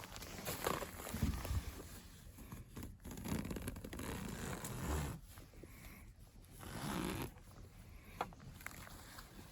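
Tent door zipper being pulled in several long strokes.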